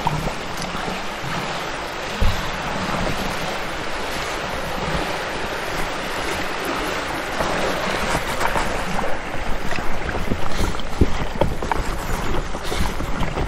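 Steady rush of river water with wind buffeting the microphone, a few light knocks scattered through it.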